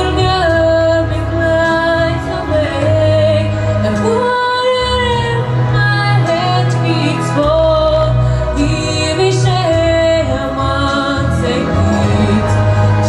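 A girl singing a song into a microphone, with long held notes, over an instrumental accompaniment.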